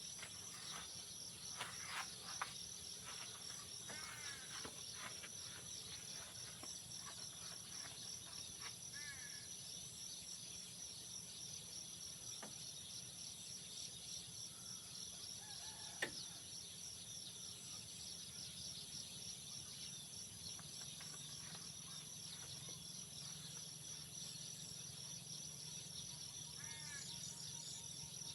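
Steady chorus of insects shrilling in a fast, continuous trill, with a few short bird chirps scattered through it and a single sharp click about midway.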